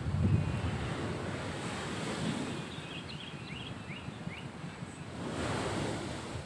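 Surf washing on the shore, with wind buffeting the microphone. A louder wave surges about five seconds in, and a few faint short chirps sound in the middle.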